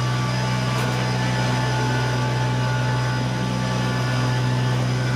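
Steady low drone of a passenger cart's motor pulling up a hill.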